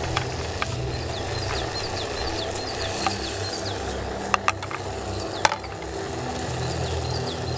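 Minced meat sizzling in a frying pan on a gas camp stove as a spatula stirs it, with a couple of sharp clicks of the spatula against the pan a little past the middle.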